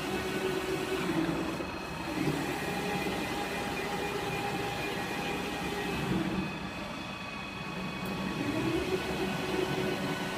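CNC gantry V-groove planing machine running as its sliding tool carrier cuts grooves into sheet steel: a steady mechanical whine and rumble from the servo drives and cutting. The pitch slides about a second in and again near the end as the drives change speed.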